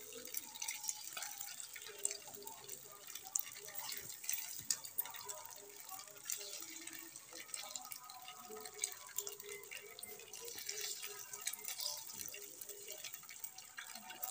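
Paneer cubes shallow-frying in oil in a kadhai: a quiet, steady sizzle with many small crackles and pops, cooking slowly at a light fry.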